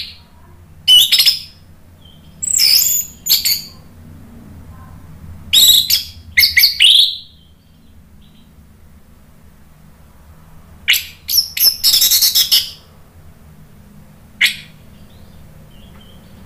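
Orange-headed thrush singing: short, loud, high-pitched bursts of varied notes in several groups, with pauses of a few seconds between them.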